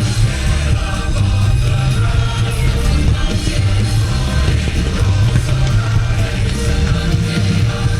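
Loud show music with singing and a heavy rock beat.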